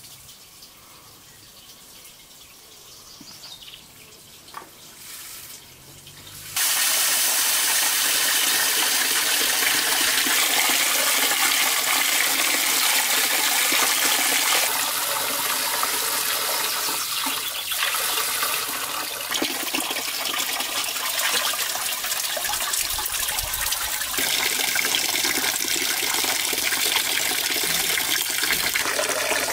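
Water running and splashing steadily, as from a tap, starting abruptly about six and a half seconds in after a quiet start.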